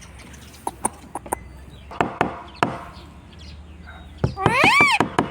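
Indian ringneck parrot: a few light, sharp taps and clicks over the first three seconds, then one loud whistled call that rises and falls, about four and a half seconds in.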